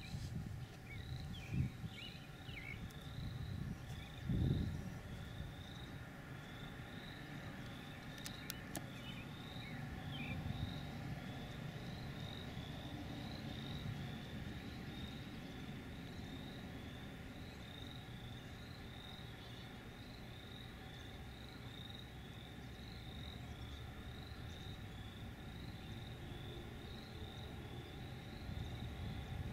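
Outdoor field ambience: a short, high chirp from a distant small animal repeats evenly, about three every two seconds, over a low rumble. A couple of low thumps come in the first few seconds.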